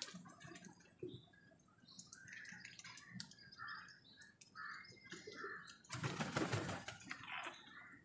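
House crows feeding on grain on concrete: scattered light taps of beaks pecking the ground, with faint short bird calls and a brief rustling burst about six seconds in.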